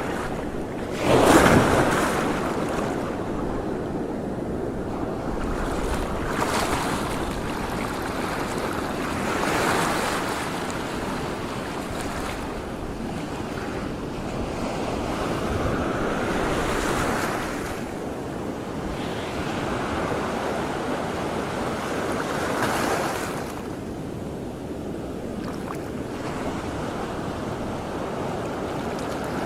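Water washing in waves with wind buffeting the microphone. The sound swells and fades every few seconds, with a louder rush about a second in.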